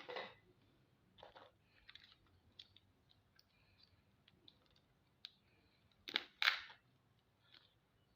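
Mud crab shell being cracked and picked apart while eating: scattered small clicks and crackles, with two louder crunches about six seconds in.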